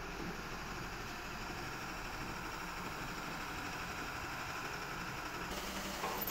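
Caterpillar 950F wheel loader's diesel engine running at a steady idle.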